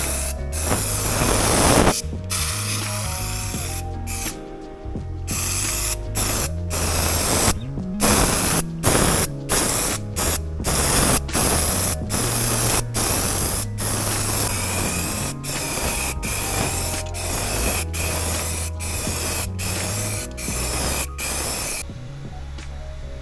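Spray gun hissing as flat black underbody coating is sprayed on, in many short bursts with brief breaks between them. The spraying stops near the end.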